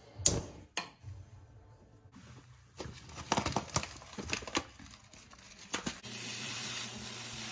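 Two sharp clicks from a gas stove knob being turned, then a plastic bag rustling and crinkling as it is handled. About six seconds in, water pours steadily from a glass measuring jug into a rice cooker's pot of rice.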